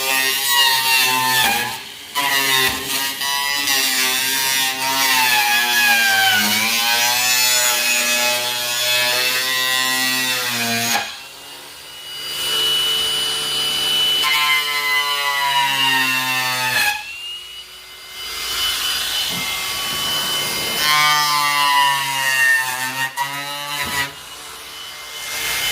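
Ryobi angle grinder with a chainsaw-type wood carving disc cutting through the plastic wall of an IBC tank. Its whine sags and recovers as the disc bites, with a few short lulls where the cut eases off.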